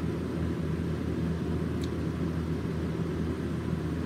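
Steady low hum of background room noise, with one faint click about two seconds in.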